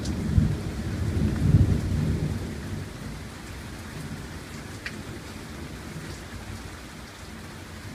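Rolling thunder rumbling and dying away over the first two or three seconds, over steady heavy rain.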